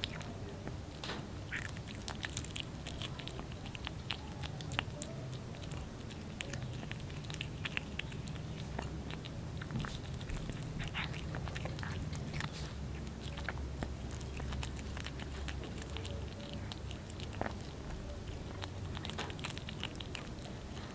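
A kitten chewing and biting boiled small fish off a plate: a run of irregular wet clicks and smacks from its mouth, over a steady low hum.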